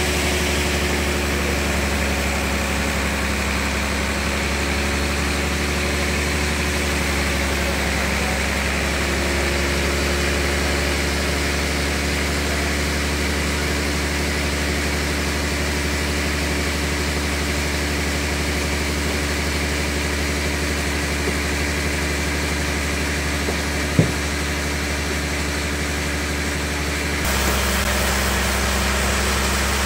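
Sawmill machinery, the large log bandsaw's drive, running steadily with a constant hum. There is one sharp knock about 24 seconds in, and the hum shifts slightly near the end.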